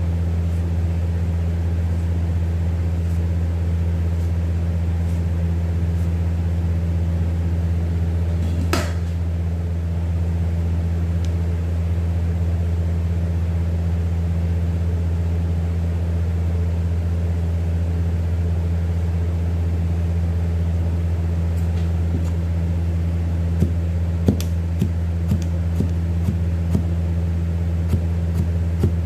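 Steady low machine hum, with a cleaver's blade knocking down onto a plastic cutting board as a potato is sliced: one sharp knock about nine seconds in, then a run of about ten knocks, about two a second, in the last few seconds.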